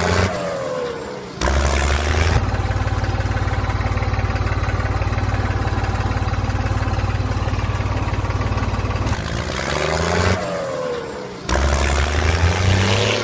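A mini tractor's engine running with a steady, rapid putter, the sound changing abruptly a few times as the footage cuts.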